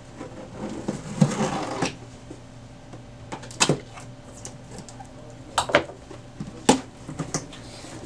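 A cardboard shipping box being opened by hand. The sealing tape is broken and the flaps scrape and rustle for about a second, followed by several sharp knocks and thumps of cardboard being handled.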